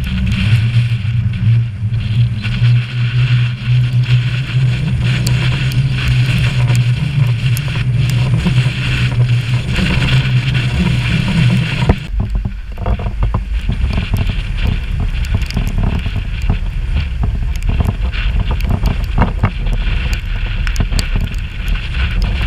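Hurricane-force wind buffeting the microphone: a loud, continuous rumble with a rushing hiss and crackling gusts. The sound changes abruptly about halfway through, turning rougher and more crackly.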